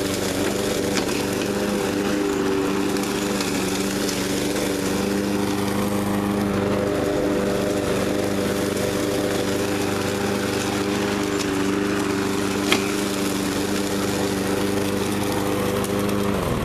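Troy-Bilt TB360 walk-behind lawn mower running at a steady speed under load, its blade cutting and side-discharging leaves and twigs without slowing down. One sharp crack about 13 seconds in, and the engine winds down as it is shut off near the end.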